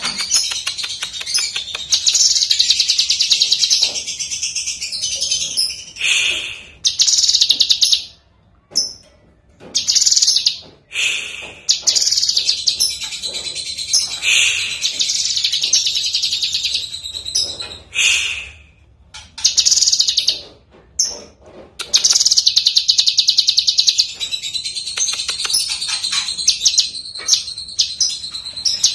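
Cucak kinoi leafbird singing a loud, rapid chattering song of fast trills and whistles, in long phrases broken by short pauses.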